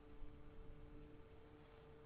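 Near silence with a faint steady hum holding two low tones over a soft low rumble.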